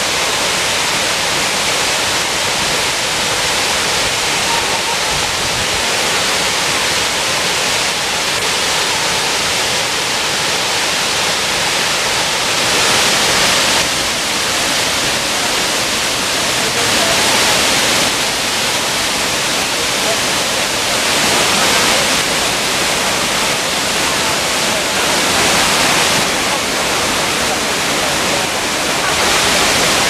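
Shiraito Falls, a wide curtain of many thin cascades and a main fall, pouring over a cliff into a plunge pool: a dense, steady rush of falling water that swells a little every few seconds in the second half.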